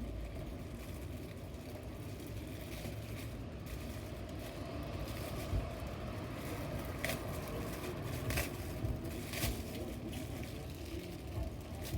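Steady outdoor background noise with a low rumble, with several short, sharp clicks and taps scattered through the second half.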